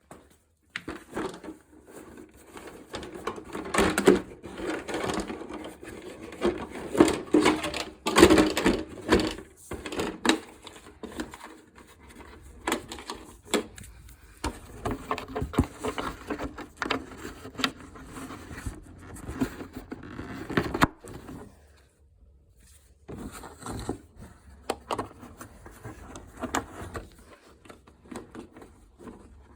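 Irregular clicks, taps and scrapes of small parts and tools being handled while an RC car's suspension and springs are worked on, with a few louder knocks along the way.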